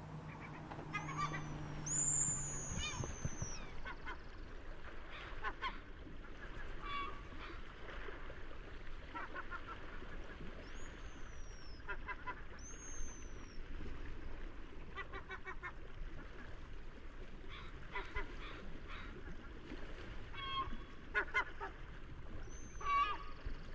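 Seagulls calling over a steady wash of ocean surf, a run of rapid cries every two to three seconds. Short, high whistles falling in pitch come through now and then. A low hum sounds for the first few seconds.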